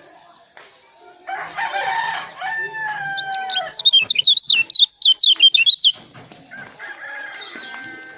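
A rooster crows about a second in, and then a kecial lombok songbird sings a loud, rapid run of high whistled notes, about four a second for two seconds, followed by softer chirps.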